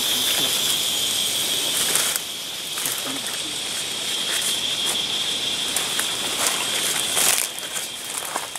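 Leaves and twigs rustling and snapping as someone pushes through dense undergrowth, over a steady high-pitched hum of night insects. A louder burst of crackling comes about seven seconds in.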